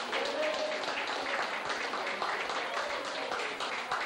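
A room full of people clapping and applauding, with voices mixed in.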